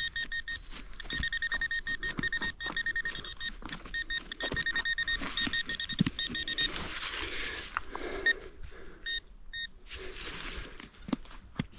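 Metal detector beeping in rapid pulses at one steady pitch while it is checked over a dug hole, signalling more metal in the soil; the beeping stops about halfway through. Scrapes and knocks of digging in dirt, with a rustle of soil near the middle.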